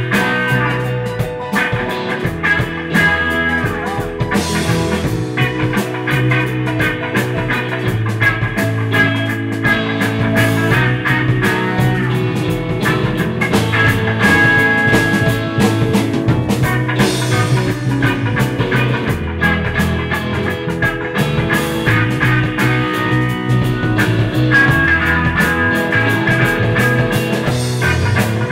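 Live instrumental rock-funk jam by a full band: drum kit keeping a steady groove under bass, electric guitar and keyboards, with long held lead notes over the top.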